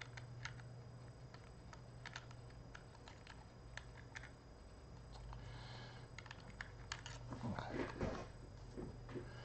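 Small clicks and taps of an SSD and its connector cable being handled and plugged in, with a louder burst of handling about seven to eight seconds in, over a steady low hum.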